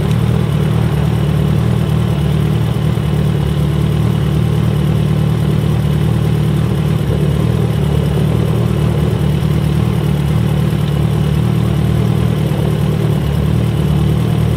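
Kawasaki ZX-14R's inline-four idling steadily through an aftermarket Brock's exhaust, a deep, even note with no revving.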